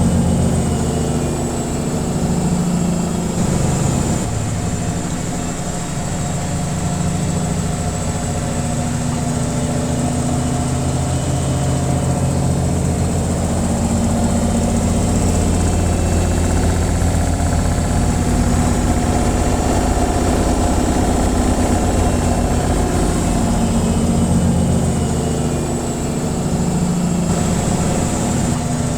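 Washing machine in its spin cycle: a steady hum and rumble from the spinning drum and motor, its pitch wavering slightly.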